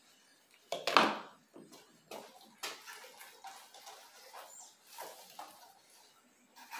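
Rustling leaves and knocks of a plastic plant pot as a potted Nepenthes pitcher plant is handled. The loudest is a single sudden rustle-and-knock about a second in, followed by scattered softer rustles and clicks.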